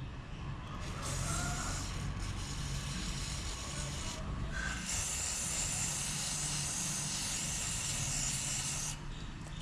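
Hissing spray in two long blasts, the first about three seconds long, the second about four, cutting off sharply near the end, over a low steady hum.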